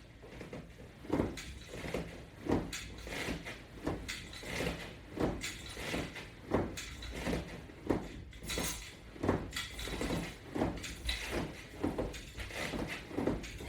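Rhythmic short sounds of someone working through exercise repetitions, evenly paced at about three every two seconds.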